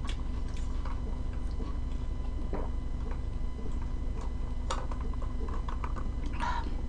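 Steady low hum with a few faint clicks and soft mouth sounds as a lemon drink is sipped through a straw from a glass jar mug.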